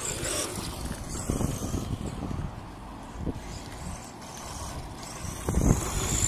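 A Subotech BG1518 Tornado 1/12-scale electric RC truck driving on asphalt: its motor whines, rising near the start and again near the end, over a steady low rumble. There is a loud bump about five and a half seconds in.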